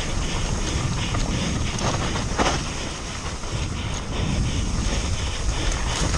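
Wind buffeting the camera's microphone as a mountain bike descends a wet, muddy trail at speed, with the bike's tyres running over the dirt and its chain and frame rattling in quick clicks over the bumps. A sharper knock comes about two and a half seconds in.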